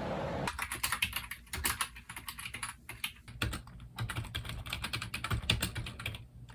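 Fast typing on a computer keyboard: a rapid run of key clicks that starts about half a second in, eases briefly midway, and stops just before the end.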